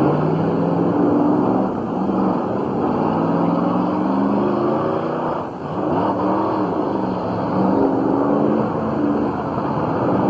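Demolition derby car engines revving hard, their pitch rising and falling again and again as the cars accelerate and push against one another, over a constant rough rumble.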